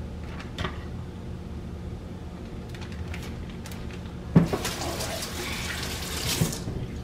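Kitchen tap running for about two seconds, starting with a knock a little over four seconds in, after a few faint clicks over a low steady hum.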